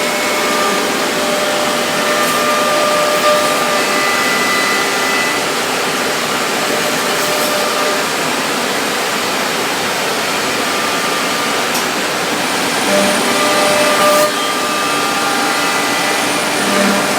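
Biesse Rover CNC router machining a wooden door: a dense, steady cutting noise with the high whine of the spindle over it. The whine's pitch shifts a couple of times as the tool works.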